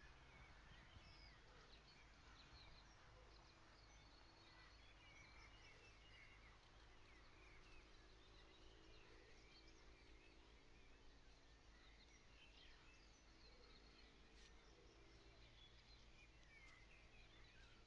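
Faint songbirds singing in the distance, many short chirps and whistles scattered throughout, over a low steady hum.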